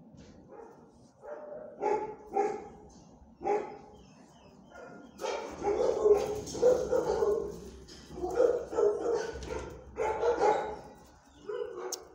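Dogs barking: a few single barks spaced out at first, then nearly continuous barking from about five seconds in.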